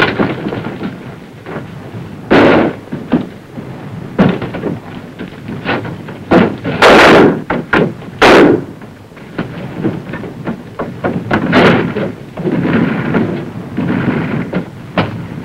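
A series of heavy bangs of a close-quarters building fight, several loud ones a few seconds apart with smaller knocks and thuds between them, dull and booming like muffled explosions and shots inside a room.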